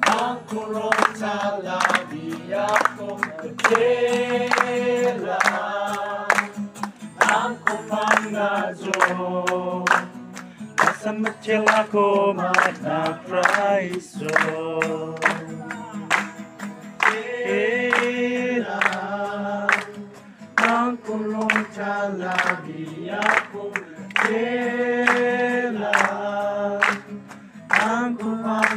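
A congregation singing a worship song together to an acoustic guitar, with a steady rhythmic beat of short strokes running under the voices.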